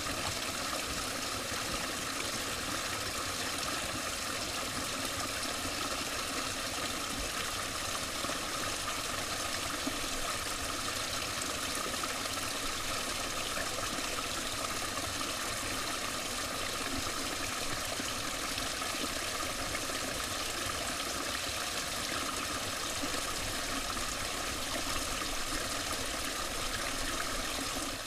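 Shallow creek water running and trickling over rocks: a steady rushing without change.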